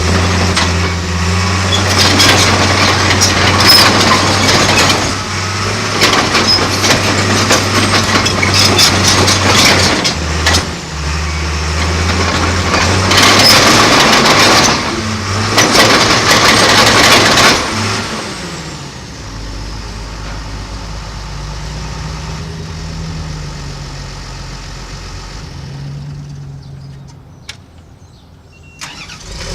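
John Deere 700J crawler dozer's diesel engine running at high revs with repeated clattering, then dropping to a low, steady idle about two-thirds of the way through.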